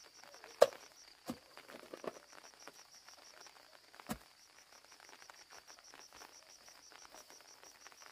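A steady, high-pitched insect trill, pulsing rapidly, with a few sharp knocks over it; the loudest knock comes just over half a second in.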